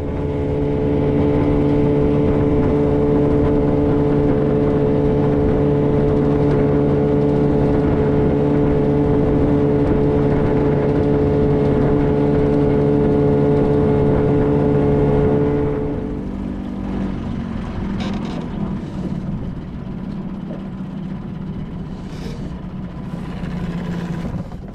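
Small tiller-steered outboard motor pushing a skiff at speed with a loud, steady note. About two-thirds of the way through, the note drops abruptly to a lower, quieter running as the boat goes slower.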